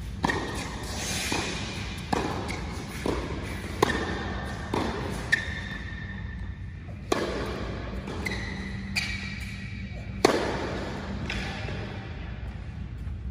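Tennis rally on an indoor hard court: a ball struck by rackets and bouncing, about a dozen sharp pops spaced roughly a second apart, each echoing in the large hall, over a steady low hum.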